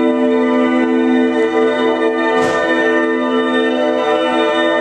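A sustained, organ-like droning chord from an experimental music ensemble, several notes held steady throughout, with a brief noisy swish about halfway through.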